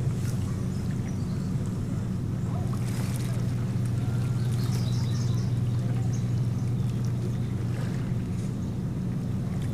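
A steady low hum, with a few faint high bird chirps about halfway through.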